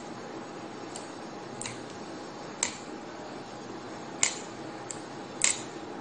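Shimano Ultegra spinning reel being handled: several sharp, irregularly spaced clicks of its parts, over a steady background hiss.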